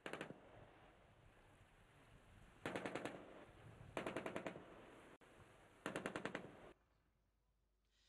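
Automatic weapon fire in four short, rapid bursts about a second and a half apart. The last burst stops shortly before the end, leaving only a low hiss.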